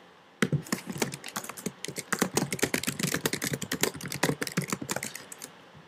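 Quick typing on a computer keyboard: a steady run of key clicks that starts about half a second in and stops shortly before the end.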